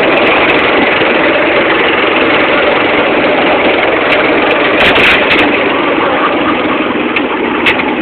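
Go-kart engine running steadily at speed, heard from on board the kart, with a few sharp knocks about five seconds in and one more near the end.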